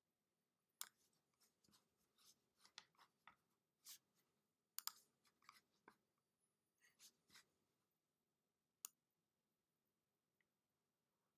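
Faint, scattered computer-mouse clicks and short scraping sounds of the mouse being dragged across the desk while drawing and erasing. They come in an irregular run over several seconds, then one more click.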